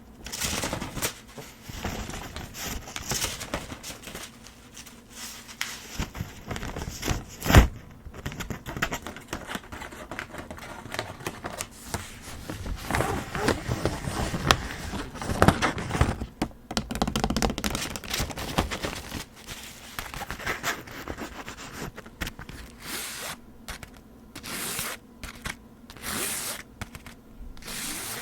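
Handheld folding fan being handled close to the microphone: scraping and rustling of its ribs and leaf, with one sharp snap about seven and a half seconds in and a run of short swishes near the end.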